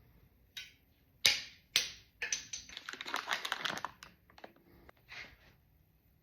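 Hard clicks and clatter of a PEX crimping tool and its parts being handled: two sharp clicks about a second in, then a couple of seconds of rapid rattling, with a few softer clicks after.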